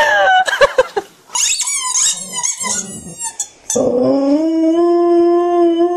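A dog howling one long, steady note that starts a little before four seconds in. Before it come a short bleat-like call and a run of high, wavering squeaks.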